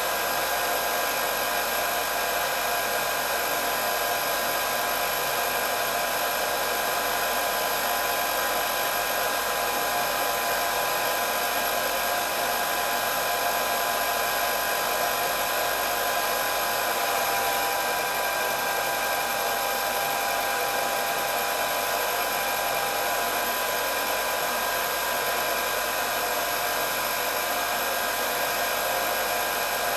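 Electric hair dryer running steadily, its fan blowing with a constant whine over the airflow noise.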